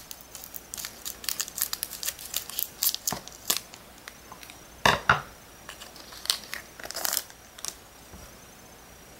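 Scissors snipping open a foil trading-card booster pack, then the foil wrapper crinkling as it is handled, with a louder crinkle about five seconds in.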